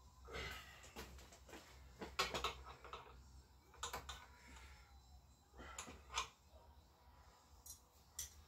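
Light, irregular metallic clicks and clinks of a spanner on the mirror nut and mount of a Honda Vision scooter's handlebar as the mirror is worked on.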